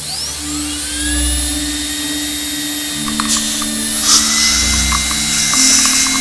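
High-speed dental drill spinning up with a rising whine, then holding a steady high-pitched whine as it is worked in the mouth. A lower steady hum runs beneath it.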